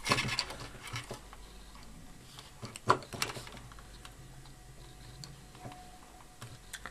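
Light clicks and snips of small scissors cutting and stripping the insulation off electrical wire, with one sharper click about three seconds in.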